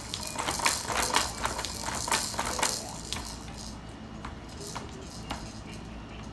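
Plastic toys on a baby jumper's activity tray rattling and clacking as the baby bats and tugs at them. A quick run of clicks fills the first three seconds, then they grow sparser.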